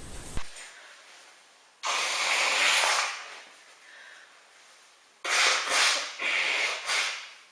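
A person blowing their nose hard: one long blow about two seconds in, then several shorter blows in quick succession near the end.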